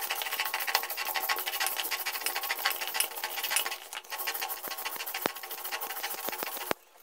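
A stone roller grinding soaked yellow mustard seeds with green chilies and salt on a stone slab (shil-pata), making a dense, gritty crunching and clicking. It breaks off briefly near the end.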